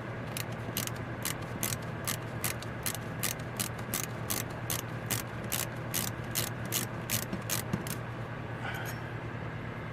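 Hand ratchet clicking in an even run of about two and a half clicks a second, stopping about eight seconds in, as a fastener on a carburetor is worked during disassembly. A steady low hum sits underneath.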